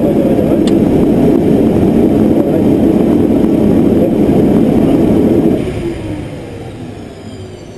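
Let L 410 UVP-E20 turboprop engines running at idle, heard from the cockpit, then shut down about five and a half seconds in: the engine noise dies away with a falling whine as the turbines spool down.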